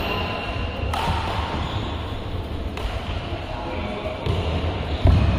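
Badminton rackets striking the shuttlecock in a large hall: three sharp hits about two seconds apart, the loudest near the end, over a steady low rumble.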